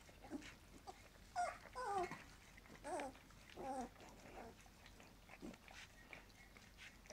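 Young puppies eating from a pan of soft food, with about four short, high whines or yelps between roughly one and four seconds in, over faint wet smacking and lapping.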